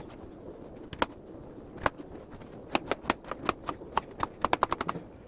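A kitchen knife chopping a potato on a cutting board: two or three single cuts, then a quick, even run of chops, about four or five a second, for the last couple of seconds.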